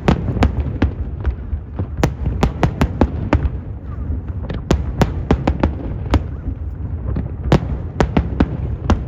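Fireworks display: a rapid, irregular run of sharp bangs and cracks, several a second, over a continuous low rumble of further bursts.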